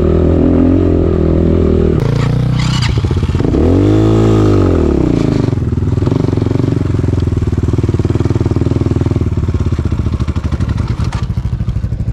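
Dirt bike engine running while ridden. It revs up and back down once about four seconds in, then runs lower and more slowly with a pulsing beat.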